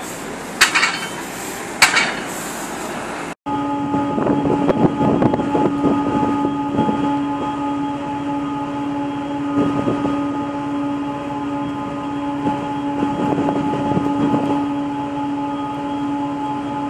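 A ferry's steady engine and machinery hum, several fixed tones held level, under a rushing noise that swells and fades. Before it, street noise with two sharp knocks about a second apart.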